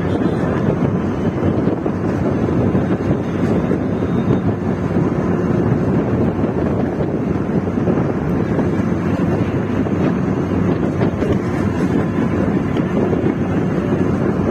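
Steady rush of wind buffeting the microphone, mixed with road and engine noise from a moving vehicle travelling at speed.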